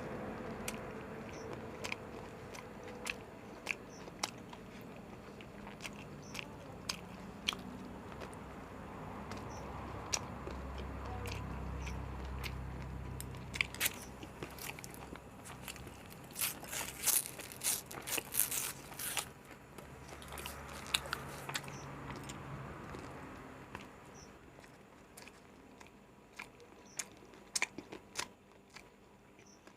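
Close-up biting and chewing of an egg roll, with many sharp, wet mouth clicks and crunches; the clicks come thickest a little past the middle.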